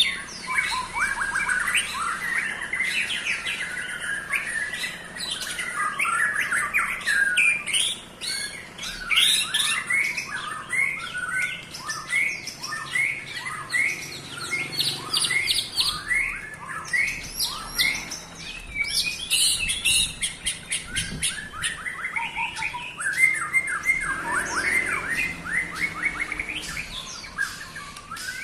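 A murai batu (white-rumped shama) in full song: a long, varied run of rapid whistles, trills and chattering notes with only brief breaks. This is the kind of full song that kicaumania keepers play to get other shamas agitated and singing.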